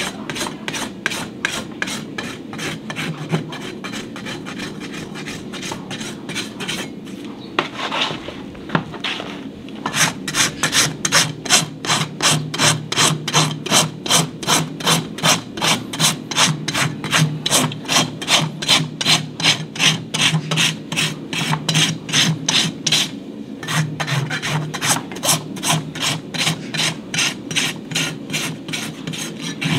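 A farrier's steel hoof rasp scraping back and forth across a horse's hoof in steady, even strokes, about two to three a second, as the hoof wall is shaped. The strokes break off briefly about eight seconds in and come back louder.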